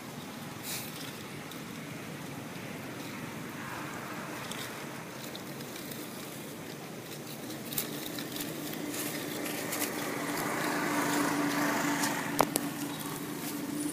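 A motor vehicle's engine running at a distance, its steady hum growing louder in the second half, over light crackling of dry leaves, with one sharper crackle near the end.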